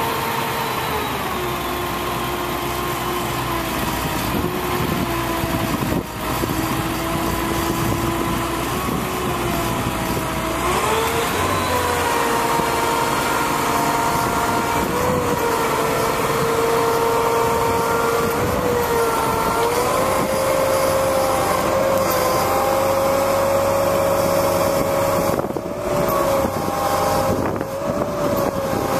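1999 International digger truck running, with the Altec digger derrick's hydraulics working as the boom is operated. Its steady hum drops in pitch about a second in, rises again about ten seconds in, and shifts a few more times as the controls are worked.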